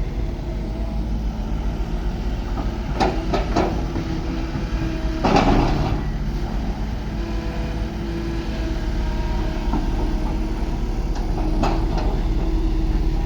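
Komatsu D31 bulldozer's diesel engine running steadily under work, with sharp metal clanks a few times and one louder, rougher crunching burst about five seconds in.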